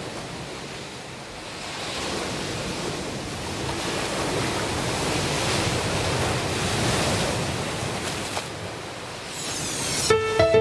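A rushing, surf-like noise swells up and eases off as the soundtrack's intro, with a short whoosh near the end, and then sustained keyboard notes of the music come in.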